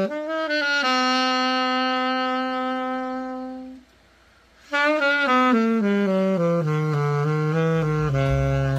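Genesis Master Traditional A6 alto saxophone being play-tested after a full overhaul: a quick rising run into a long held note, a pause of about a second, then a descending run of notes down into the low register.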